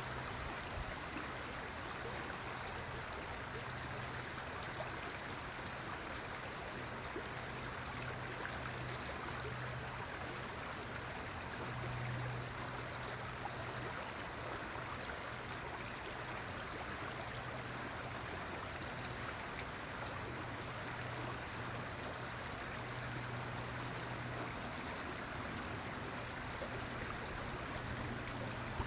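A river flowing steadily, a continuous even rush of water, with a faint low hum underneath that swells now and then.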